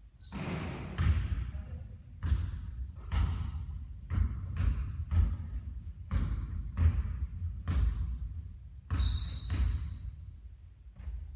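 Basketballs bouncing on a court floor, a thump about every half second to second, with a few short high squeaks now and then.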